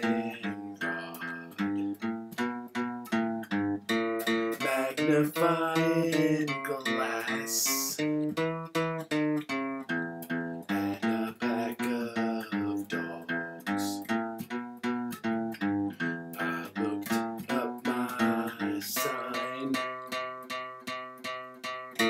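Background music: a guitar playing a steady run of quick plucked notes.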